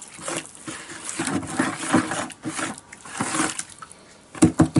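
Hand stirring a runny fire-clay slip in a plastic bucket: irregular sloshing and swishing of the watery clay. A few sharp knocks near the end.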